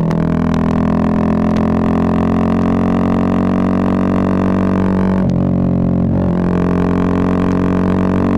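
Bajaj Pulsar 220F's single-cylinder engine running through a Race Concepts full-system exhaust at a steady pace. It makes a loud, even drone that dips briefly in pitch about five seconds in, then settles back.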